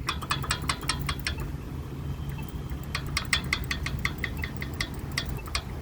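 Accessible pedestrian signal at a crosswalk button giving rapid ticking, about eight ticks a second, in two runs with a pause of about a second and a half between them, over the low hum of idling traffic.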